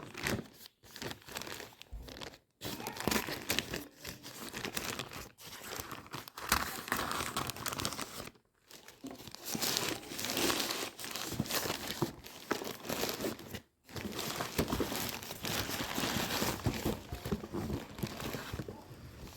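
Plastic packaging being handled and torn open, crinkling and crackling almost without a break, with three short pauses.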